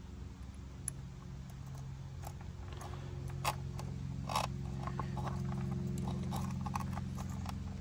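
Small clicks and rattles of bullet-connector terminals and wire leads being handled and pushed together, the two sharpest about three and a half and four and a half seconds in. Under them runs a steady low machine hum.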